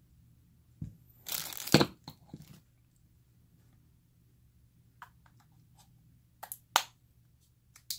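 A plastic battery bag torn open: a crinkly tearing rush about a second in, ending in a sharp snap. A few light clicks and snaps follow in the second half.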